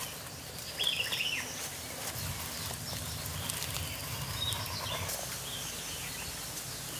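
Quiet outdoor ambience with a few short bird chirps. Beneath them is faint handling noise as a cloth plug is pushed into a green bamboo pipe and tamped with a bamboo stick.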